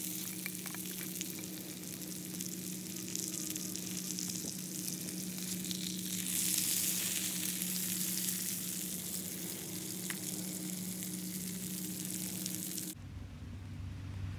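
Needlefish fillets sizzling as they fry in butter in a small non-stick pan, with a low steady hum underneath. The sizzling cuts off abruptly near the end.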